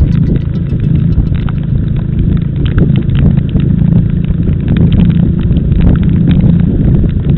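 Car on the road, heard from inside: steady engine and road rumble with scattered short ticks and knocks.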